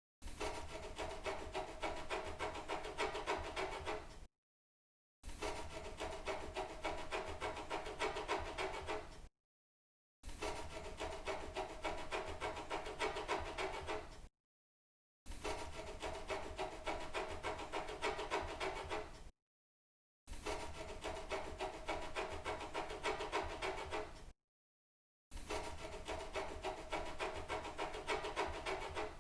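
Scratching sound effect: fast, dense scratching strokes in bursts of about four seconds, each cut off by a second of silence, six times over.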